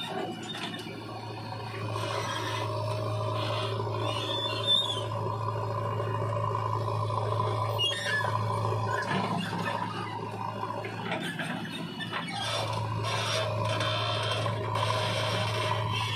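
Diesel engines of a JCB 3DX backhoe loader and a Sonalika tractor running steadily, with rasping and scraping as the backhoe bucket digs and dumps soil into the tractor trailer. The engine note dips briefly about eleven seconds in.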